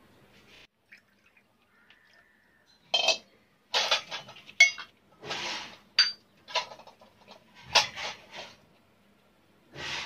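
Brass puja vessels (bowls, plates and tumblers) being handled and set down on a hard floor: a string of clinks and clatters starting about three seconds in, a couple of them ringing briefly.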